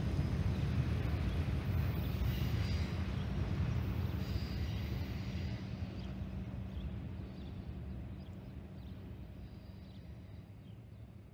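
Rumble of a freight train's autorack cars rolling away on the rails, with a faint steady hum, fading slowly and evenly as the end of the train recedes.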